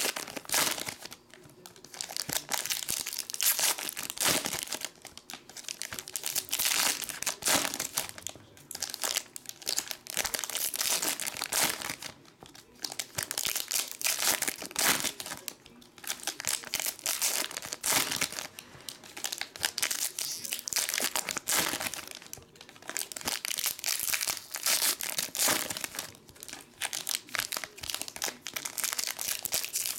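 Foil trading-card pack wrappers crinkling and tearing as packs are ripped open and handled by hand, in crackly bursts with brief pauses every few seconds.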